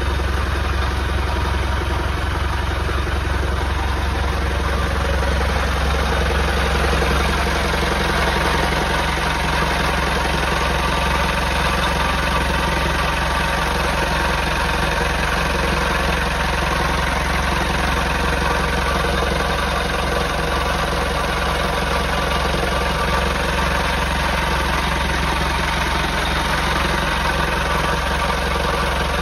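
The yacht's inboard engine running steadily at idle, heard close up inside the engine compartment.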